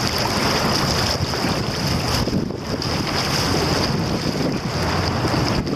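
Wind buffeting the microphone over the rush of river current and splashing paddle strokes around a tandem canoe moving through choppy water, with a steady high hiss over it all.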